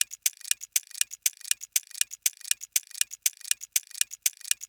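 Clock ticking sound effect, about four sharp ticks a second, used as a countdown timer while the quiz question waits for an answer.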